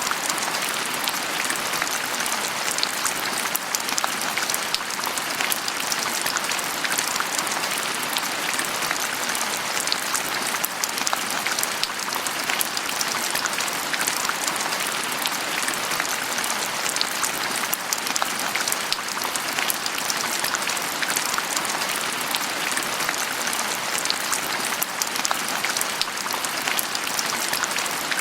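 Steady rain falling, an even hiss full of fine drop impacts.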